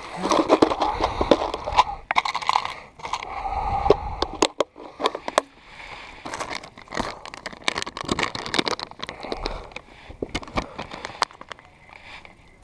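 Crinkling and rustling of a clear plastic soft-plastic lure packet being handled, with many small clicks and scrapes, busiest in the first few seconds. The angler is getting out a new bait to re-rig after a bite-off.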